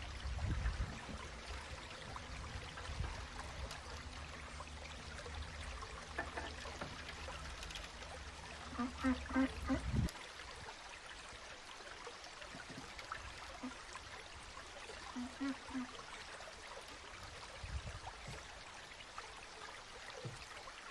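Steady trickle of running water, with a low rumble underneath that cuts off about ten seconds in. Two short runs of three or four quick pitched calls stand out, around nine seconds in and again around fifteen seconds in.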